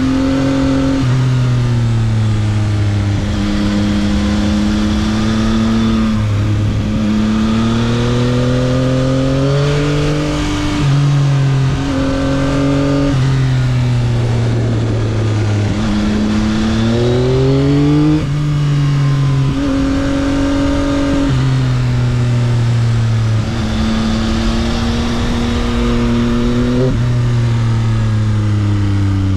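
2022 Yamaha XSR900's inline three-cylinder engine through its stock exhaust under hard riding. The pitch climbs under throttle, drops sharply at several upshifts, and sinks when the rider rolls off for bends.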